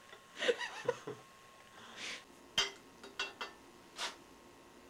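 A short vocal laugh near the start, then a few sharp clicks and clanks of a small metal container being handled, with a couple of brief hissing rustles.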